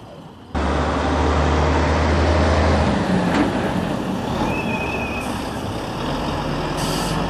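Road traffic driving past close by: heavy vehicles, including a lorry, passing with a loud low engine rumble and a rush of tyre noise. The sound starts abruptly about half a second in, is heaviest for the next two seconds, then eases off.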